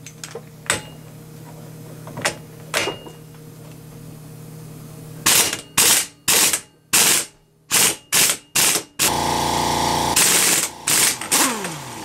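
Impact gun with a 36 mm socket hammering the axle hub nut off an early Dana 44 axle shaft. A few light clicks come first, then several short loud bursts of rapid impacts. The gun runs freely as the nut breaks loose and spins off, with more short bursts, and winds down near the end.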